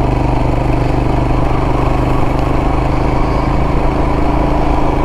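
Royal Enfield Himalayan's single-cylinder engine running steadily as the motorcycle cruises at an even speed along a gravel track, with no change in pitch or level.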